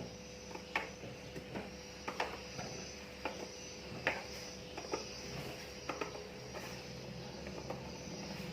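Scattered light clicks and taps, roughly one a second, over a steady hum.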